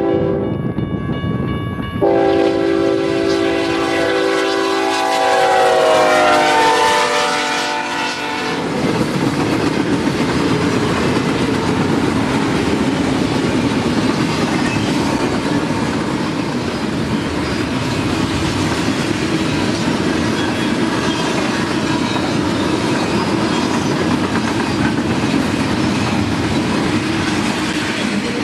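BNSF freight locomotive's multi-chime air horn blowing a long blast, louder from about two seconds in, its chord sliding down in pitch as the locomotive passes. From about nine seconds in it gives way to the steady rumble and clickety-clack of the train's cars rolling by.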